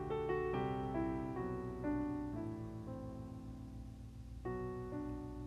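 Slow, soft piano music: single notes and held chords, with a new chord struck about four and a half seconds in.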